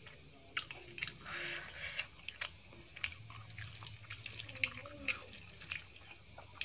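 Close-miked eating sounds: irregular wet clicks and smacks of chewing dal and rice, mixed with the squelch of rice and dal being mashed together by hand.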